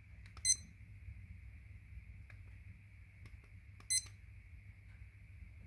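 Two short electronic beeps from a digital indoor/outdoor thermometer as its buttons are pressed, about three and a half seconds apart, each with a faint button click just before it. The second beep comes as the display switches to its stored readings.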